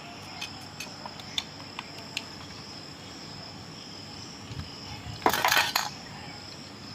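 Light metal clicks of a screwdriver and hands working the screws on a scooter carburetor's float bowl. A louder, noisy scrape about half a second long comes near the end.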